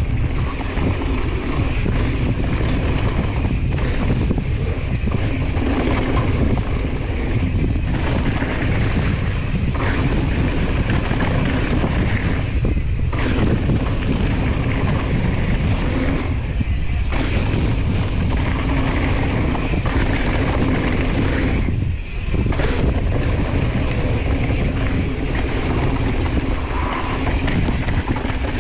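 Wind buffeting the microphone, with the rumble of mountain bike tyres rolling fast over loose dirt and gravel; a few brief lulls.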